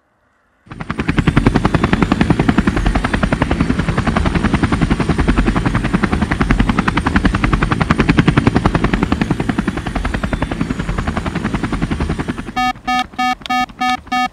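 Jamara Floater RC helicopter's rotors chopping in a fast, steady beat while it flies. Near the end the chopping gives way to a quick run of electronic beeps, about five a second.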